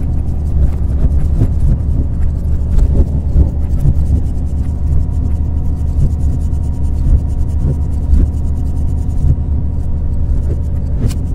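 Moving diesel locomotive heard from its cab: a steady low rumble of engine drone and wheels on the rails, with a constant hum over it.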